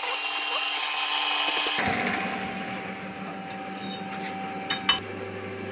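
Milling machine running with a steady hiss that cuts off abruptly just under two seconds in. The machine's motor keeps humming while metal clinks sound at the vise, with a sharper double clank near the end.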